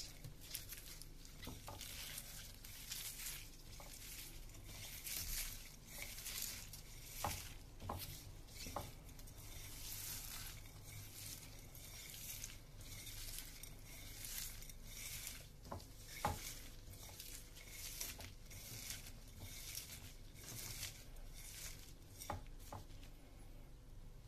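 Gloved hand squeezing and mixing sliced onion, chopped green chilli and salt on a plate: faint, uneven wet rustling and squishing, with a few light clicks against the plate.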